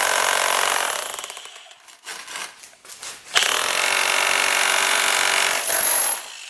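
XtremepowerUS 1000 W electric demolition hammer hammering into a brick with rapid blows, in two runs. The first dies away over the first two seconds, a few light knocks follow, and a second run starts suddenly about three and a half seconds in and stops shortly before the end as the bit goes through the brick.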